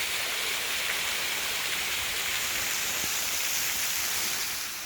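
Small waterfall splashing, a steady, dense hiss of falling water that falls away near the end.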